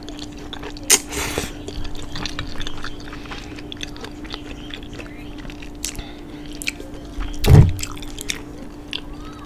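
Close-miked chewing of sauced fettuccine noodles: a slurp of a noodle strand about a second in, then wet mouth clicks and smacks. A loud dull thump about seven and a half seconds in, over a faint steady hum.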